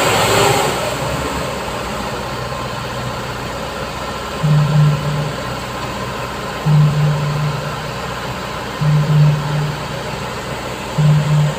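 An engine running steadily, with a low hum that swells briefly about every two seconds.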